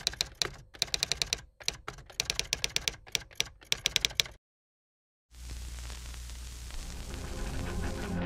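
Typewriter keys clacking in quick, uneven runs for about four seconds, then a short silence. After that a steady hiss with a low drone comes in and slowly grows louder.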